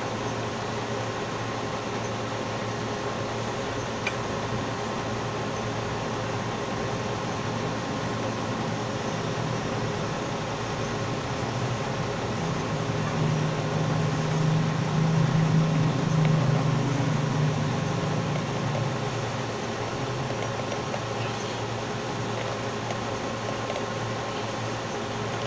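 Steady mechanical hum of running machinery, holding a few constant pitches, that swells louder and lower for several seconds about halfway through, then settles back.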